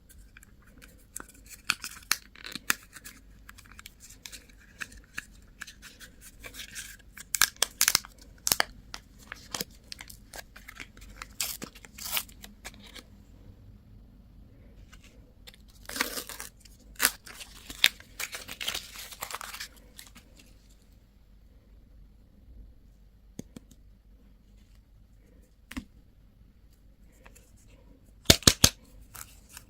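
Candy and toy packaging being opened by hand: crinkling and tearing of plastic wrappers with scattered small clicks, a longer tearing sound a little past halfway, and a quick run of sharp clicks near the end.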